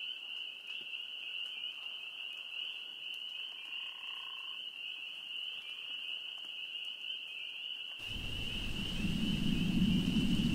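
A steady, high-pitched trilling chorus of night animals runs throughout. About eight seconds in, a low rumbling noise comes in under it and grows louder.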